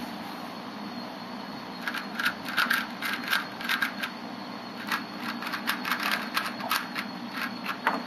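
3x3 Rubik's Cube being turned fast while being solved, in quick runs of plastic clicks starting about two seconds in, over a steady room hum.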